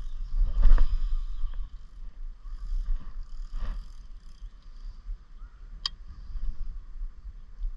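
A small boat moving across a lake: a steady low rumble of water and wind, with two soft swishes, about a second in and near the middle, and a short tick about six seconds in.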